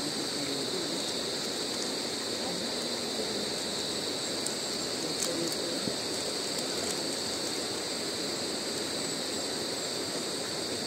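A fast-flowing river rushing steadily, with a constant high-pitched drone over it and a few faint clicks near the middle.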